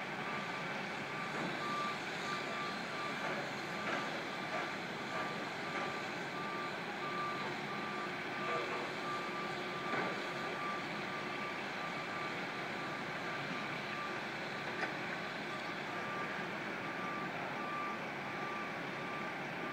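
A construction vehicle's reversing alarm beeping at one pitch in an even, unbroken rhythm, over a steady hum of engines and city noise.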